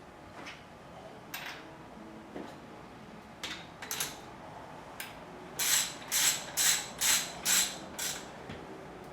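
Ratchet wrench tightening a threaded fork top cap: a few scattered clicks, then six quick ratcheting strokes, about two a second, in the second half.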